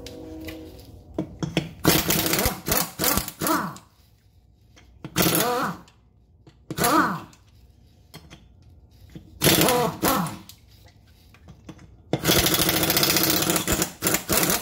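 Pneumatic impact wrench loosening a golf cart wheel's lug nuts: about five separate bursts of rapid hammering with quiet gaps between, several with a whine that rises and falls as the air motor spins up and stops, the last and longest near the end.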